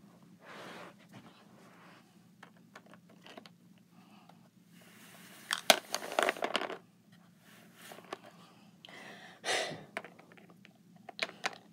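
Small plastic toy figures handled on a plastic playset over carpet: quiet scattered taps, scrapes and rustles, busiest around six seconds in and again near ten seconds.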